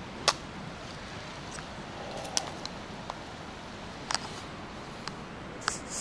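Footsteps on a forest trail, a sharp crunch of dry leaves or twigs every couple of seconds, over a steady hiss.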